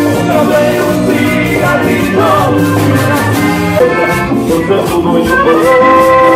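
Live cumbia band playing Latin dance music with a steady percussion beat; about five seconds in a long held note sets in over it.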